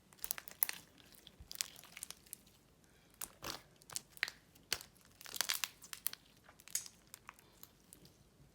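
Sticky slime being stretched and pressed by hand, making irregular crackling and crinkling sounds.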